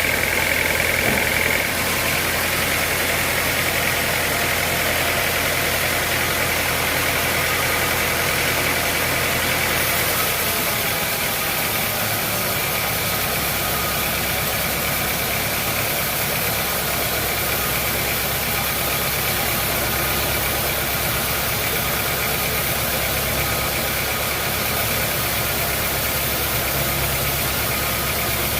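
Sawmill machinery running with a steady mechanical hum; its low drone changes about eleven seconds in.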